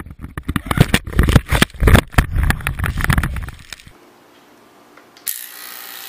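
A body-mounted camera crashing and tumbling through snow: a dense run of knocks, thumps and scrapes with wind buffeting for about four seconds, then it stops. About a second before the end, electric hair clippers start a steady buzz.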